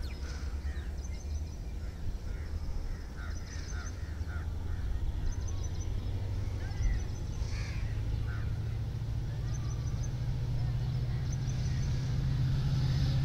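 Distant passenger train approaching: a low rumble that builds slowly and becomes a steadier hum near the end. Birds chirp over it now and then.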